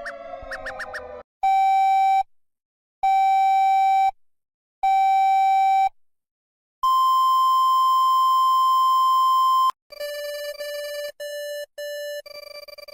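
Synthetic emergency-alert alarm tones: three evenly spaced electronic beeps about a second each, then one longer, higher steady tone lasting about three seconds, then a run of short, choppy beeps. It opens on the tail of a rising electronic sound.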